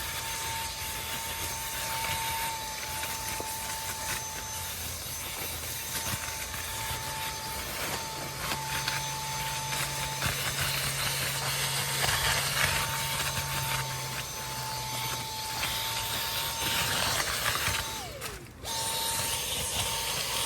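A motor-driven machine running steadily: a high whine over a rushing noise with a low hum beneath. It cuts out briefly near the end, then starts again.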